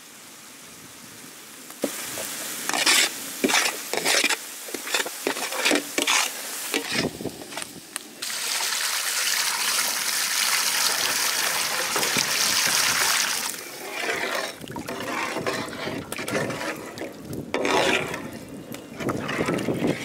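Ladle stirring and scraping through a pot of spiced fish gravy masala, with irregular knocks, and a steady hiss for about five seconds in the middle.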